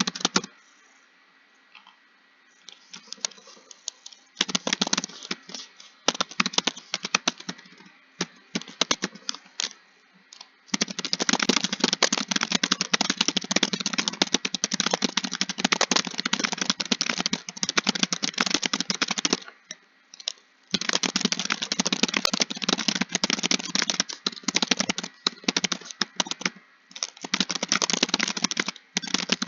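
Fast typing on a computer keyboard: rapid key clicks in runs. After a few quiet seconds near the start, the typing becomes nearly continuous, broken by a short pause about two-thirds of the way through.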